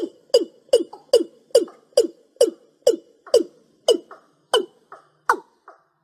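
Watercock calling: a series of short, deep notes, each falling in pitch, about two or three a second. Near the end the notes come further apart and turn higher.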